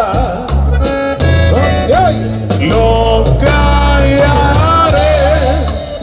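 Live norteño band playing an instrumental passage: an accordion melody over guitar, bass, congas and drum kit, with a steady beat.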